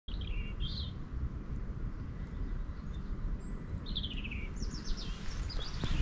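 Wild songbirds singing: several short phrases of quick chirps that fall in pitch, a couple in the first second and more in the second half, over a steady low background rumble.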